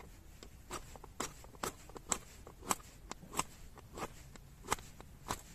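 A ferrocerium rod struck again and again with a flint stone, about two quick scraping strokes a second, throwing sparks to light wood-shaving tinder.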